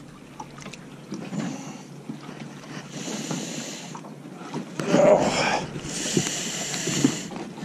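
A crappie being brought in and lifted into a small fishing boat: wind and water noise with handling rustles and a few light knocks, and a louder burst of noise about five seconds in.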